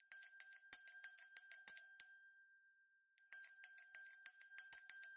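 A small bell ringing with rapid repeated strikes in two bursts of about two seconds each, with a short gap between. It is a notification-bell sound effect.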